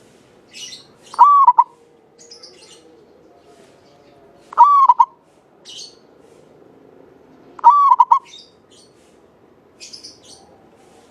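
Zebra dove (Javanese perkutut) cooing: three short, clear song phrases, one about every three seconds. Faint high chirps from other small birds fall between them.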